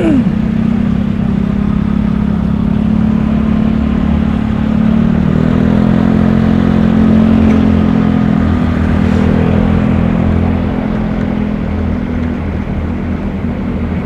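Yamaha Xeon 125 automatic scooter's single-cylinder engine running steadily while riding, over a constant rushing noise.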